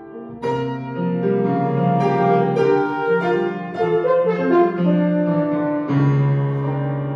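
French horn and piano playing a classical piece together, the piano most prominent with chords and a quick run of notes in the middle, and a low held note near the end.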